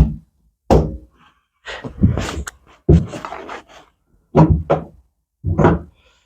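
A series of about seven hollow thunks and knocks, each with a brief low ring, irregularly spaced.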